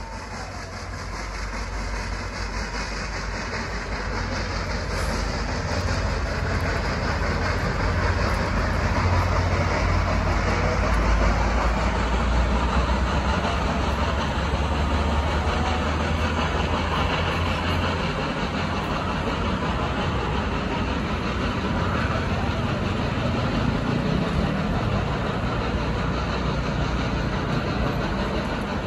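Union Pacific excursion train behind steam locomotive Big Boy 4014 rolling past: a steady rumble and clatter of the yellow passenger cars' wheels on the rails, growing louder over the first ten seconds or so. A deep low rumble under it drops away about eighteen seconds in.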